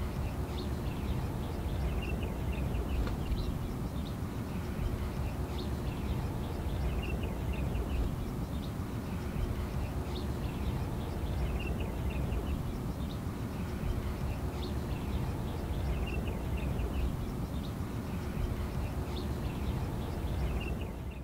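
Outdoor ambience: small birds chirping in short, scattered bursts over a steady low rumble.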